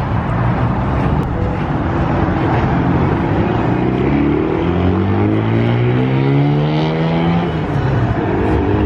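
Car engine accelerating hard along the street, its pitch rising steadily for about four seconds before it drops away, over steady road and traffic noise.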